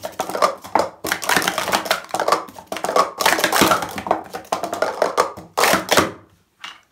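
Rapid clatter of hard plastic Speed Stacks cups being slammed up and down into stacks on a StackMat during a timed sport-stacking run. It stops abruptly about six and a half seconds in, followed by a couple of last knocks.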